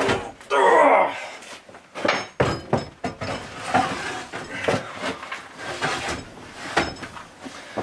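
Handling noise from working on a battery bank's cables and terminals in a small wooden compartment: scattered knocks, thuds and light metallic clinks. The loudest sound, about half a second in, is a short noise that slides down in pitch.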